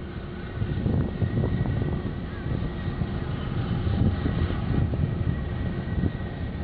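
Wind buffeting an outdoor microphone: a continuous low rumble that surges and drops irregularly.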